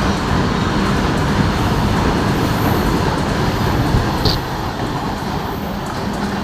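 Freight train of BTPGLN tank wagons running through at speed: a steady loud rumble of wheels on rail, easing slightly a little past four seconds in.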